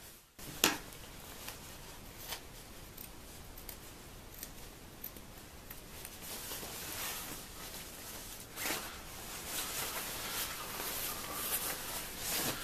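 Scissors snipping through the nylon shell and seam of a quilted down jacket to cut off its hood, with rustling of the padded fabric between snips. The sharpest snip comes about half a second in, with a few more later.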